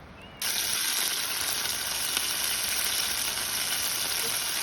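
Food sizzling in hot oil in a pan, starting suddenly about half a second in and then holding a steady, loud hiss.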